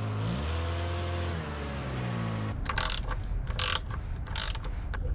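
Ratchet wrench clicking in four short runs, working on the truck's drain plug or oil filter for an oil change. Before it, a humming tone slides up and then back down in pitch.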